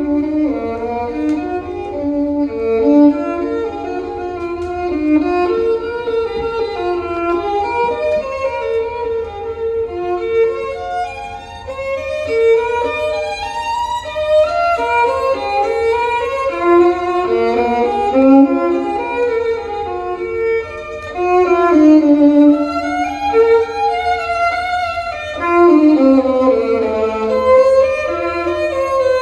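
Violin music played back from a record through large horn loudspeakers, heard in the listening room: a continuous melodic line of held and moving notes, over a steady low rumble.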